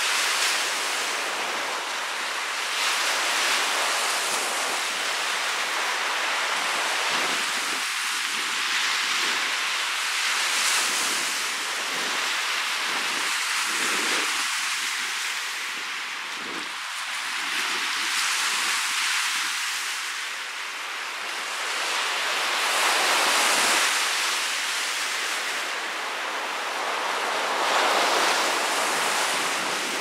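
Wind-driven surf on a large freshwater lake, breaking on a sandy beach in a 16-knot wind: a continuous hiss of waves that swells and eases every few seconds as each breaker rushes up the sand.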